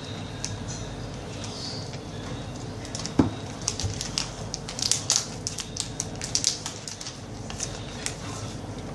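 Packaging of an iPhone 7 Plus box rustling and crinkling as it is handled and unwrapped, with quick crackles that come thickest in the middle and a single knock about three seconds in.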